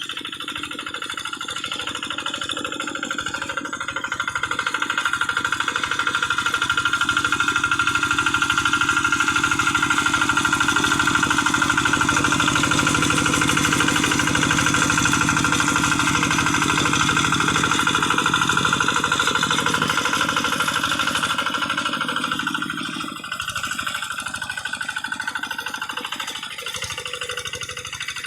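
Single-cylinder Kubota RD85 DI diesel engine on a paddy-field hand tractor running with its fast, knocking beat. It gets louder a few seconds in and drops back a few seconds before the end.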